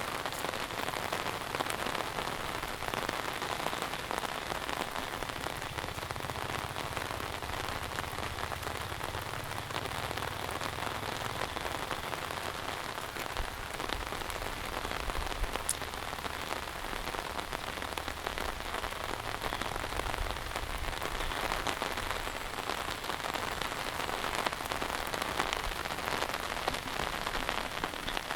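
Heavy monsoon rain falling steadily, a dense, even hiss of drops. A low rumble comes and goes in the middle.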